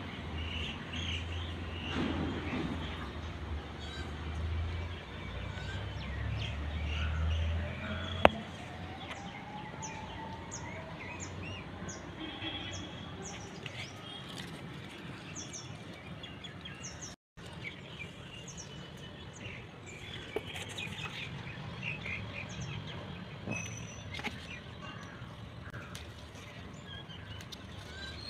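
Small birds chirping repeatedly over steady outdoor background noise. A low rumble runs through the first eight seconds, one sharp click comes about eight seconds in, and the sound cuts out for a moment just past halfway.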